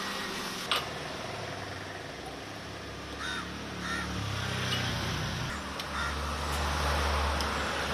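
Outdoor street noise: a steady noisy background with two short rise-and-fall calls about three seconds in, and a low engine-like hum that swells in the second half.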